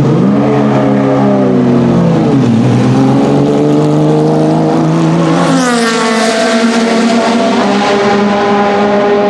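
Porsche 996 GT3 race car's flat-six engine pulling away at low revs, with a brief dip in revs about two and a half seconds in. About five and a half seconds in, the revs climb sharply, then hold steady as the car pulls away.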